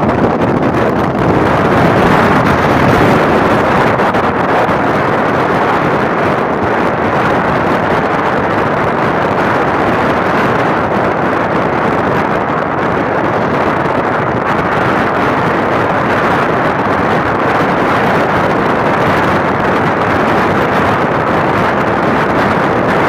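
Wind rushing over the microphone of a rider on a moving Suzuki Smash 115 motorcycle, with road noise: a loud, steady roar and no distinct engine note.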